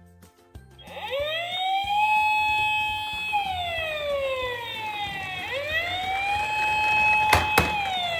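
Toy emergency vehicle's electronic siren wailing. It starts about a second in, rises, holds, and slowly falls, then rises and holds again, with two sharp clicks near the end.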